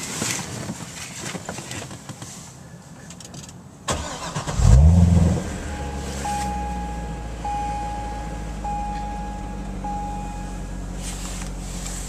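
2011 Chevrolet Corvette's 6.2-litre V8 starting about four seconds in, revs flaring up then settling into a steady idle. A dashboard chime sounds four times, evenly spaced, while it idles.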